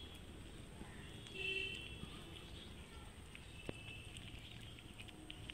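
Street cats eating rice and fish, with light chewing clicks and a brief cat meow about a second and a half in.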